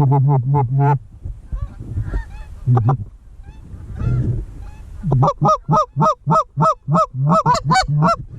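Goose calls blown hard and close in bursts of two-note honks. A quick cluster opens the stretch, a few single honks follow, and from about five seconds in comes a rapid run of about four honks a second, each breaking upward in pitch.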